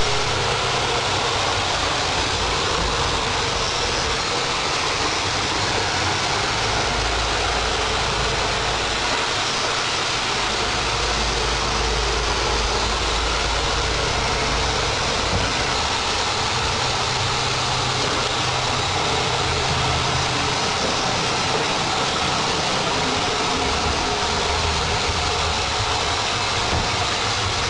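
Roomba robot vacuum cleaner running, a steady whirring of its vacuum motor and brushes.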